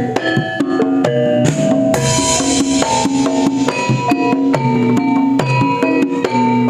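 Javanese gamelan ensemble playing an opening piece (gending pambuka): bronze metallophones and gongs striking held pitched notes in a steady pulse over drums, with a bright shimmer about two seconds in.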